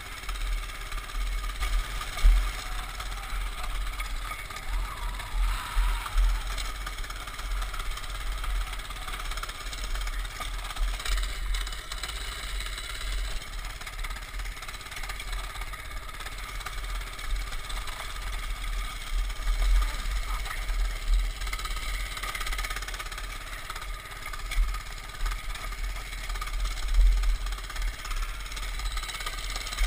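Baja mini bike's small single-cylinder engine running as the bike rides over rough grass. A heavy, uneven low rumble and occasional sharp jolts on the handlebar-mounted camera run under it.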